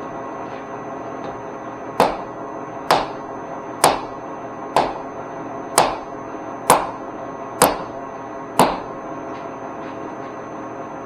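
Eight sharp mallet strikes, about one a second, starting about two seconds in, knocking a machine part into place against its rubber seal so it seats. Background music plays steadily underneath.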